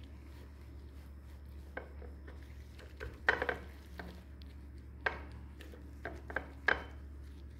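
Gloved hand rubbing seasoning into raw beef tenderloin steaks on a ceramic plate: scattered short slaps, squelches and clicks of meat and glove against the plate, clustered about three seconds in and again later, over a steady low hum.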